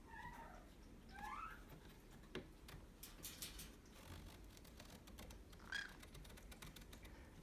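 Quiet soft chirps from pet conures: two short gliding chirps within the first second and a half, another about six seconds in, with scattered light clicks between.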